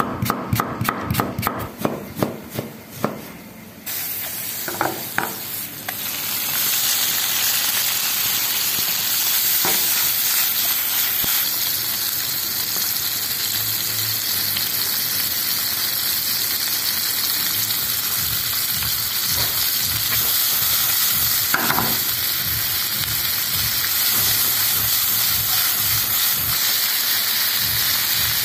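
A kitchen knife chopping green pepper on a wooden cutting board: a quick run of cuts for a few seconds. Then food sizzling steadily in hot oil in a frying pan.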